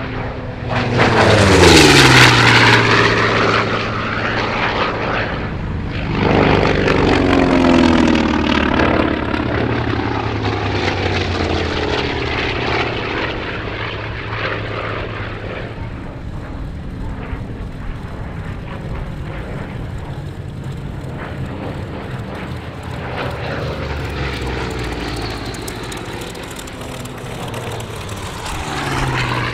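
Radial-engined WWII US Navy propeller fighters making low passes, engine and propeller drone sweeping down in pitch as each passes. There are loud passes about two and seven seconds in, a steadier drone after them, and another aircraft swelling in just before the end.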